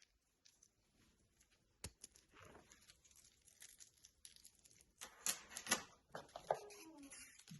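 Hands handling unboxing packaging: faint rustling and crinkling with scattered small clicks, a sharp click about two seconds in, and louder crinkles a little after the middle.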